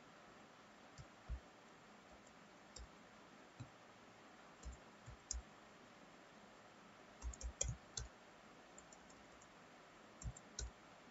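Computer keyboard keystrokes, sparse and irregular, over faint background hiss, with a quick run of several keypresses about seven to eight seconds in.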